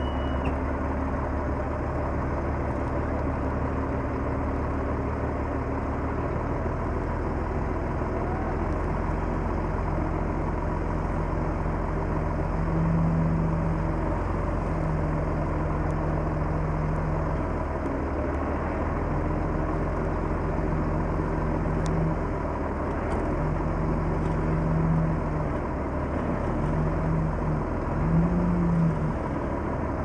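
Komatsu D31P bulldozer's diesel engine running continuously while working, a low rumble with a droning note that comes and goes as the load changes, rising briefly a few times near the end.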